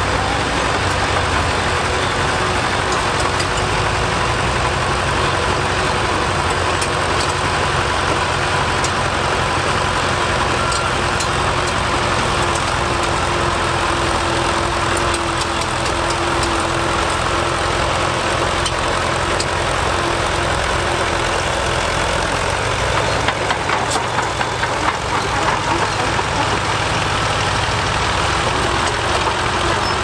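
Fordson County crawler bulldozer's engine running steadily while the machine pushes soil with its front blade, with scattered light clicks over the engine sound.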